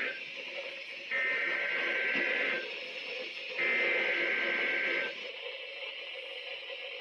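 NOAA Weather Radio SAME header: digital data bursts of two alternating high tones, the tail of one and then two more, each about a second and a half long with a second of receiver hiss between them. It is the coded alert header that sets off weather radio receivers, here for a weekly test of the station.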